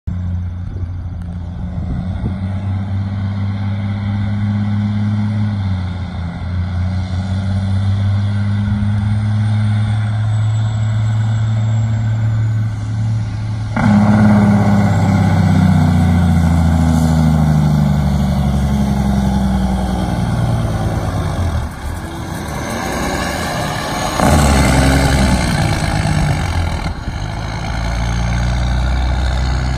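Diesel engine of a semi-tractor fire tanker truck running as it approaches, its engine note falling and rising with gear changes, getting suddenly louder about halfway through. A loud air-brake hiss comes about three-quarters of the way in as the truck slows to a stop.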